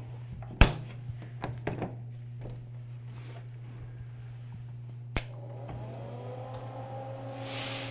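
Metal compartment door on an equipment trailer being unlatched and swung open: a sharp click about half a second in and another about five seconds in, over a low steady hum.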